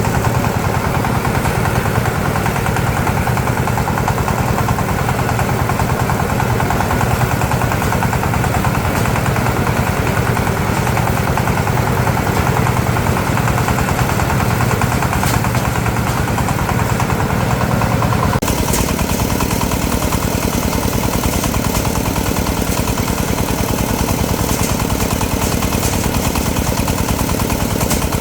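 Small engine running steadily with a rapid chugging beat. Its tone changes abruptly about eighteen seconds in.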